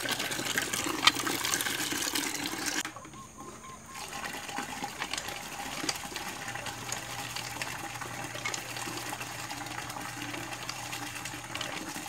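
Water gushing from a cast-iron hand pump's spout into a plastic bucket as the pump handle is worked up and down. The splashing drops away for about a second near three seconds in, then carries on.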